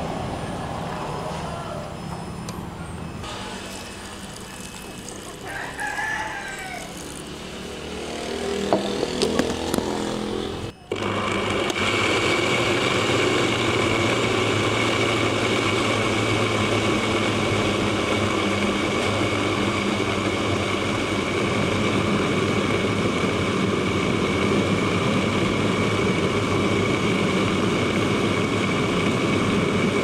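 Electric blender motor starting about a third of the way in and then running steadily at high speed with a constant whine, pureeing corn kernels. Before it starts, a rooster crows in the background and there are a few clicks.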